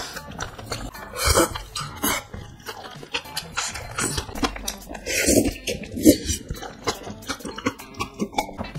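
Close-miked eating: a person chewing and biting mouthfuls of spicy stew, with metal chopsticks clicking against a bowl.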